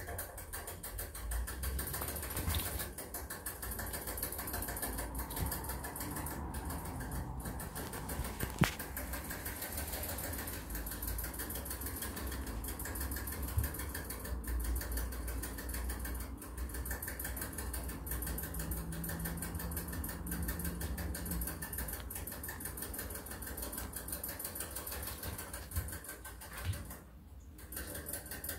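Rabbit drinking from a hanging water bottle: a rapid, steady run of small ticks as it licks the bottle's drinking spout.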